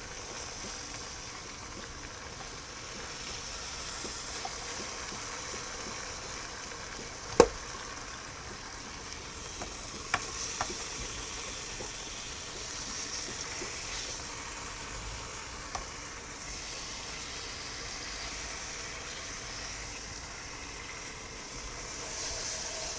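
Beef roast sizzling steadily as it sears in the hot inner pot of an electric pressure cooker. A single sharp clack about seven seconds in, louder than the sizzle, and a few lighter clicks later.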